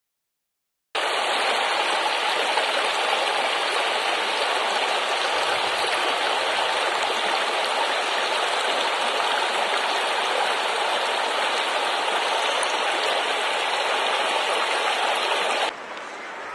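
Shallow river water rushing steadily over stones, after about a second of silence at the start. Near the end it drops abruptly to a quieter level.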